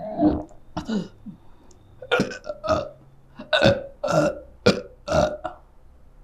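A man belching repeatedly: about eight loud burps in quick succession, some closely paired.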